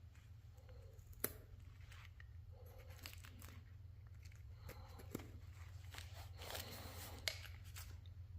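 Faint scraping and cutting of a hand chisel paring a maple honey dipper, with three sharp clicks, over a steady low hum.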